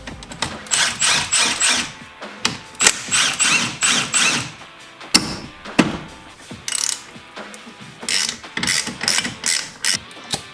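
Ratchet wrench clicking in several short runs of quick clicks as bolts are worked off a car's front brake caliper.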